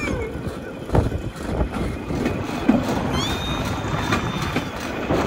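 Steel wheels of a pedal-powered rail bike rolling along the track: a steady rumble with irregular clacks, and a thin high whistling tone about three seconds in.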